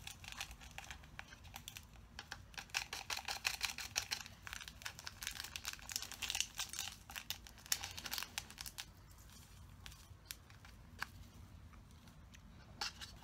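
A thin plastic cup crinkling in the hand while a stick stirs watery homemade slime inside it, with quick scraping clicks against the cup wall. The crackle is busiest for the first eight or nine seconds, then thins to a few scattered clicks.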